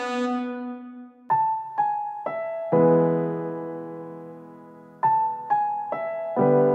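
Background piano music. A held note from the previous phrase fades out, then three short notes lead into a ringing chord that slowly dies away, and the figure repeats.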